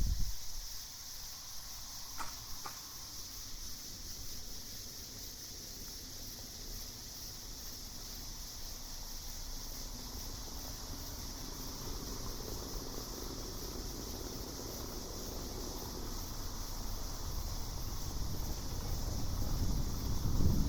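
Crickets chirping in a steady high trill. A low rumble dies away in the first second and builds again near the end, and there are two faint clicks about two seconds in.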